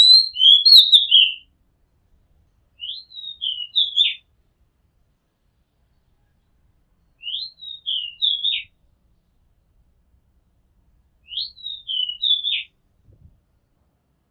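Oriental magpie-robin singing: four short whistled phrases a few seconds apart, each rising and then dropping in pitch, the last three nearly alike.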